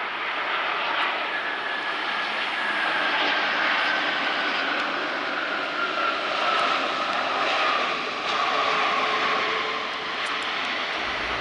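Boeing 777-200ER airliner's twin jet engines roaring on landing, with a whine that falls slowly in pitch over several seconds.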